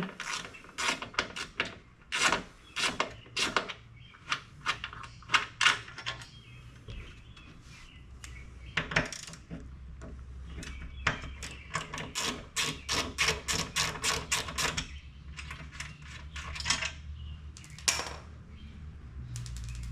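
Ratchet wrench clicking in runs of quick clicks as the two bolts holding a lower door armor panel are backed out, with a faint low hum underneath.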